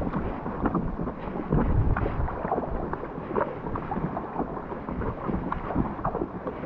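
Wind buffeting the microphone with a low rumble, over irregular splashes and slaps of choppy water against an inflatable kayak.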